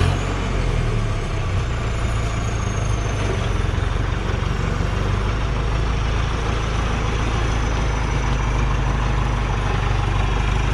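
Heavy Hoa Mai truck's diesel engine running steadily at a low, even speed. A faint high whine slides slowly down in pitch over the first few seconds.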